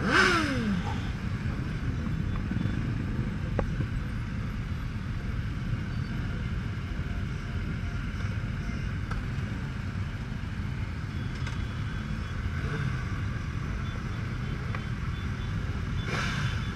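Many motorcycle engines idling together in a packed crowd of bikes, a steady low rumble. In the first second one engine's pitch falls as it revs down.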